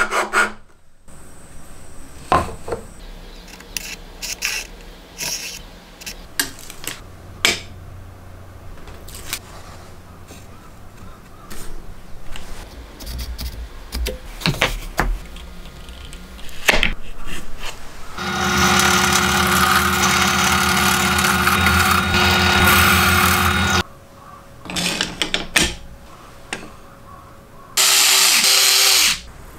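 Workshop sounds: a few rasping strokes of a hand file on plywood at the start, then scattered clicks and knocks of wood and tools being handled. A power tool runs steadily for about five seconds past the middle, and a second short burst comes near the end.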